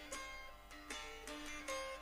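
Instrumental break of a folk carol: a plucked string instrument picking a tune, several notes a second, each with a sharp attack and a short ring.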